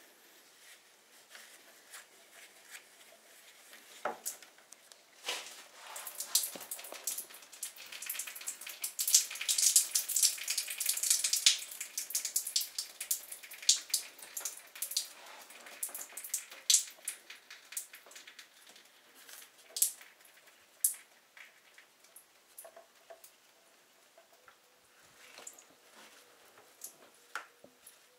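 Hands working the car's plastic engine undertray from below: irregular clicks, scrapes and crackling plastic, densest about eight to twelve seconds in, then scattered knocks and rustles.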